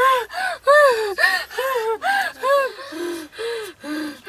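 A woman's rhythmic voiced gasps, about two a second, each rising and falling in pitch, as in a feigned spirit-possession fit. Over the last second or so they turn lower and quieter.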